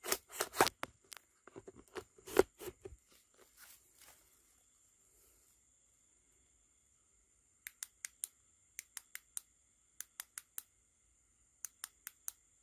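Dry straw and broken debris crunching and crackling underfoot for the first few seconds. Then, after a quiet spell, a run of short sharp clicks comes in four quick groups of four, about a second apart.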